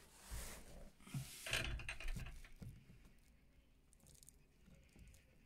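Quiet rustling and scraping as a gloved hand works through gritty screed debris around a PVC drain elbow, with a few soft knocks in the first half, then only faint clicks.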